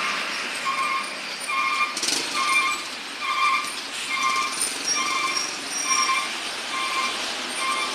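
Repeated short pitched beeps, about ten of them, evenly spaced a little faster than one a second, over steady background noise.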